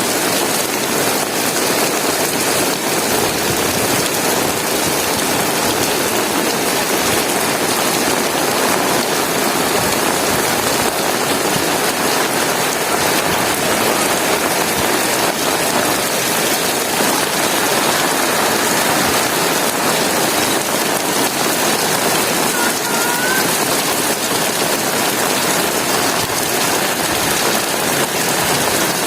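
Heavy rain falling steadily and hard on the ground and other surfaces, a dense even hiss. A faint short rising squeak cuts through once, late on.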